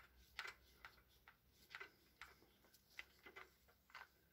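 Faint, irregular light clicks and ticks, about ten spread unevenly: a screwdriver and gloved hands working screws out of the plastic housing of a DeWalt DCH273 SDS hammer drill.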